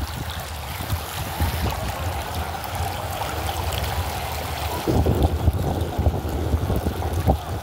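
Muddy rainwater rushing and churning along a flooded street after heavy rainfall, a steady watery rush. Low buffeting from wind on the microphone, heaviest from about five seconds in.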